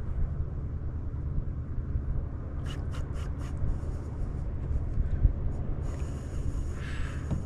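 A steady low rumble with no clear pitch, with a few short clicks about three seconds in and a brief hiss near the end.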